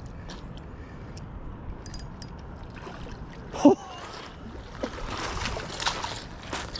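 Water splashing and sloshing as a hooked sturgeon is scooped into a landing net in shallow water, growing busier in the second half. A single short vocal exclamation cuts through about halfway through, the loudest moment.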